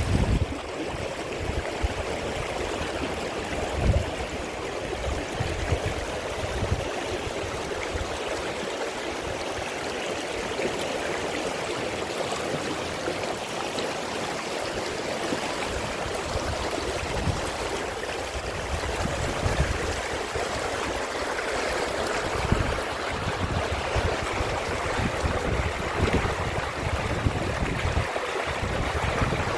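Waterfall: water falling and rushing steadily, with occasional short low rumbles.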